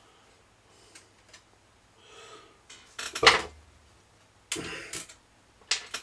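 Screwdriver clicking and scraping against a small metal mechanism while prying off a retaining clip: a few light ticks, a short scrape, a sharp metallic click cluster about three seconds in (the loudest), a longer scrape a little later and one more click near the end.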